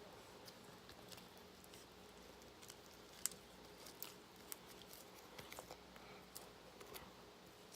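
Near silence with scattered faint clicks and taps, the sharpest about three seconds in.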